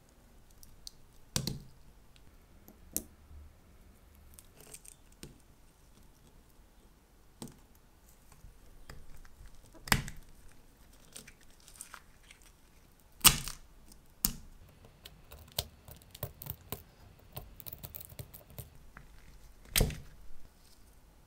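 A flat metal blade prying at the steel case and bezel of a Seiko 6309-7290 dive watch. Small scraping and crackling comes from its cracked crystal glass, with a handful of sharp snaps as parts pop loose, the loudest about ten, thirteen and twenty seconds in.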